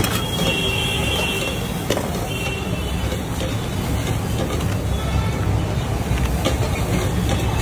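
Steady street traffic noise, with a few sharp metal clicks from a spatula against the omelette pan.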